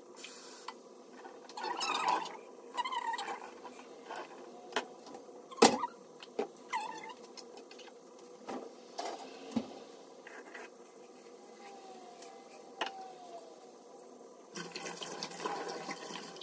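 Scattered light clicks and knocks of objects handled at a kitchen counter, one sharp knock about five and a half seconds in. Near the end a kitchen tap is turned on and water runs into the sink to rinse a mate gourd.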